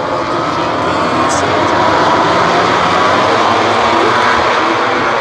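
Pack of MotoGP racing bikes, 1000 cc four-stroke prototypes, running at high revs as the whole field goes through the turns together, many engines overlapping into one dense drone whose pitch rises as they accelerate.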